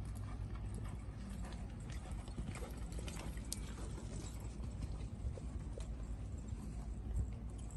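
Horse's hoofbeats on soft sand arena footing as it trots, loudest and most distinct about two to four seconds in as it passes close, over a steady low rumble.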